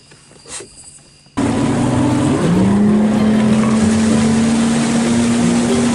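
Crickets chirping steadily, with a brief knock just after the start. About a second and a half in, a sudden cut to a loud engine running under a heavy rushing noise; its steady hum rises slightly and then holds.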